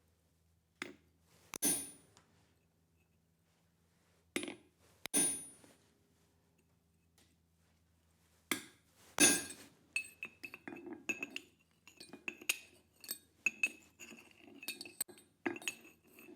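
Hammer striking steel on an anvil, laying out the fork end of a blacksmith-made smoker fork: three pairs of heavier blows a few seconds apart, then a run of quicker, lighter taps, each with a bright metallic ring.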